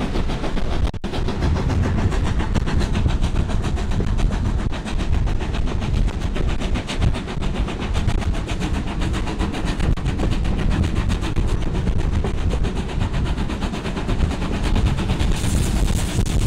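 Steam train hauled by BR Standard Class 2 2-6-0 No. 78022, heard from just behind the tender: a steady running noise of wheels on rail and the locomotive working. Wind on the microphone grows stronger near the end.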